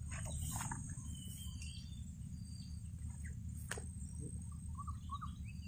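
Swamp ambience: a few short bird chirps over a steady high insect drone and a low background rumble, with one sharp click a little under four seconds in.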